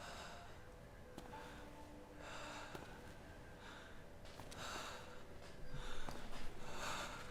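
Faint breathing and sniffing, a few soft breaths about a second long at uneven intervals, over quiet room tone.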